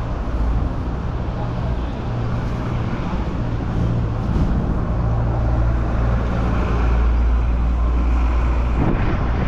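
Strong gale wind rumbling on the microphone, mixed with steady road traffic.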